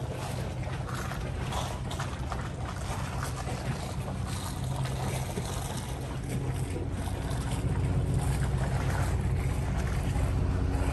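A small ferry boat's engine runs steadily, heard from on board. Its low hum grows gradually louder toward the end.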